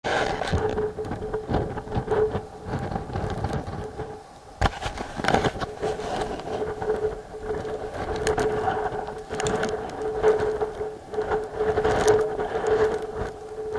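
Strong gusty wind rushing and buffeting the microphone, rising and falling in gusts, with a steady whistling note held through it and the surf rumbling underneath.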